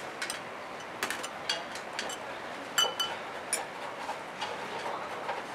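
Metal spoon clinking against a glass bowl while stirring a liquid sauce: a dozen or so light, irregular ticks, one of them ringing briefly like glass near the middle.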